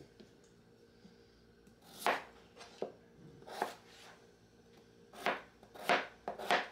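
Chef's knife slicing a raw peeled potato on a plastic cutting board: about six separate cuts with uneven gaps, starting about two seconds in.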